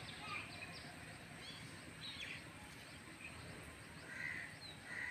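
Outdoor bird calls: scattered short, high chirps, with two harsher calls near the end, over a steady low background noise.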